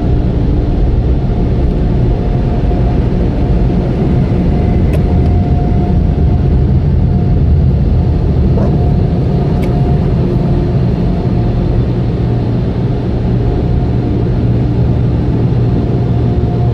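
Automatic car wash machinery running: a loud, steady low rumble with a faint whine held over it and a few light clicks.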